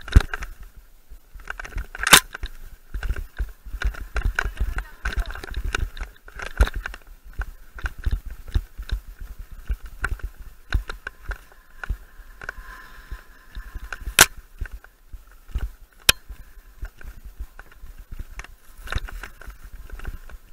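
Mountain bike rattling and knocking over a rough dirt trail on a descent, with chain and frame clatter throughout and a few sharp, loud impacts about two, fourteen and sixteen seconds in.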